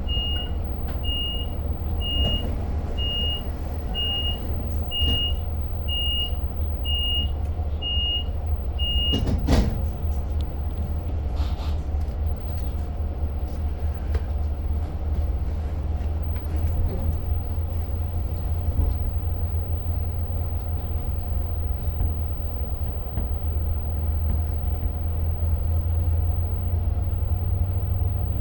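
Interior rumble of a Long Island Rail Road diesel train running, steady and low. For the first nine seconds a single high warning beep repeats about once a second, ten times, and a sharp knock follows just after the beeps stop.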